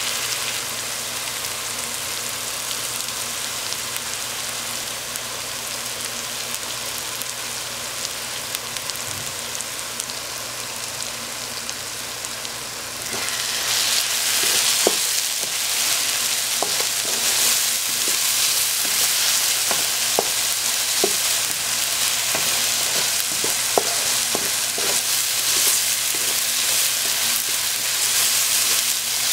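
Blended spice paste of onion, garlic, turmeric and ginger sizzling in a nonstick pan. About halfway through the sizzle turns suddenly louder as whole cardamom and ground spices go in, then a wooden spatula stirs the mixture, with scattered light knocks against the pan.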